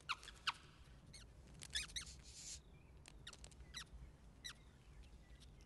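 Cartoon mouse squeaking: about ten short, high squeaks scattered through the few seconds, with a brief soft hiss just past two seconds.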